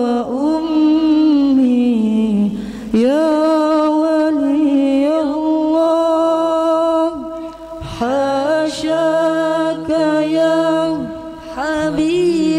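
Male voices singing an Arabic sholawat (devotional song praising the Prophet) unaccompanied into microphones, drawing out long ornamented melismatic notes. A second, lower voice joins beneath the first about eight seconds in.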